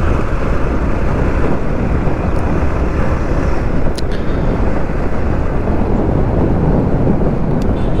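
Yamaha MT-15 motorcycle riding along, its engine running under a steady rush of wind noise on the microphone.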